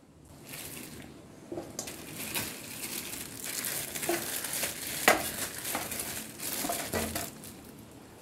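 Knife blade scraping the outer layer and hair off pieces of cow skin, a run of rough rasping strokes with a few sharp knocks of the blade, the loudest about five seconds in.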